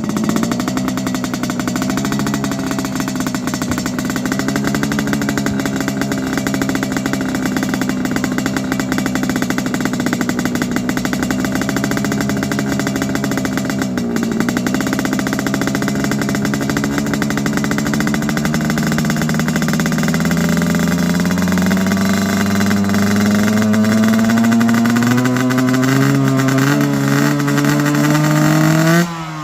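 Yamaha RX-King two-stroke single-cylinder motorcycle engine running through a stainless-steel cobra-style underbody exhaust, with the deep snoring note the uploader calls 'ngorok'. It holds a steady speed, dips briefly about halfway, then the revs climb slowly over the last ten seconds.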